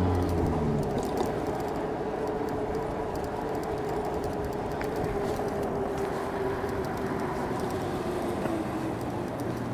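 E-bike riding on a rough road: steady wind and road noise with a single motor whine that slowly drops in pitch over several seconds.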